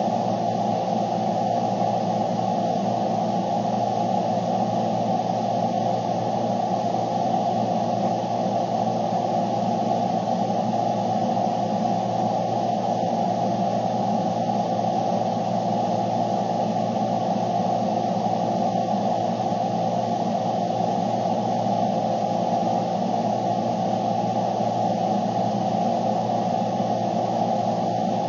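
Steady low hum and hiss heard from inside a car cabin, the even drone of a running car.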